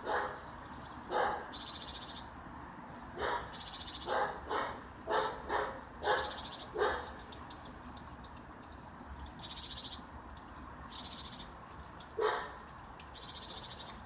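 A dog barking at intervals, about ten barks, most of them in a quick run between about three and seven seconds in and one more near the end. Between the barks, a bird gives a short, high, rattling call five times.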